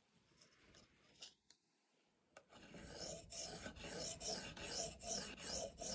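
A Venev sharpening stone on a KME guided sharpener stroked back and forth along the edge of a K390 steel knife blade: a rhythmic scraping at about two strokes a second. It starts about two and a half seconds in, after a few faint clicks.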